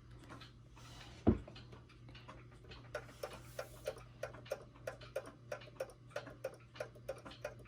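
Pendulum movement of a 1929 E. Ingraham tambour mantel clock ticking steadily, about three ticks a second, the ticks clearer from about three seconds in. A single thump a little after one second in.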